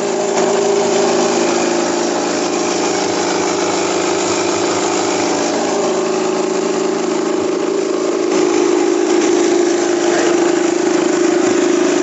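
Small rice husker machine running with a steady mechanical drone, slightly louder about eight seconds in.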